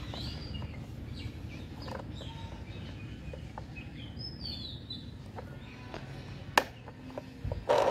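Birds chirping in the background over a low steady outdoor noise, with small plastic clicks as a toy wheel is worked onto its axle; one sharper click about six and a half seconds in, as the wheel snaps on.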